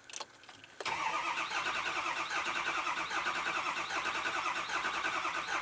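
Ford 6.0L Power Stroke V8 diesel cranking on the starter without firing yet: a faint click, then from about a second in a steady, evenly pulsing crank. It is a longer crank, which is normal while the high-pressure oil system builds injection pressure.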